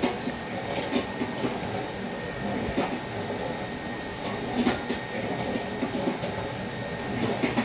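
Steady background rumble with a few scattered light knocks and plastic rustling as a plastic tub of batter is tipped into a plastic piping bag held in a steel mug.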